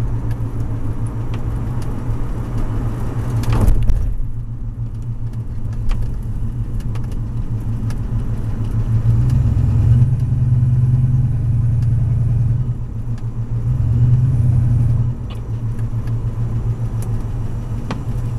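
A car running with a steady low drone that swells louder twice, likely the whining noise the owner is trying to place. A brief rushing sound comes about four seconds in.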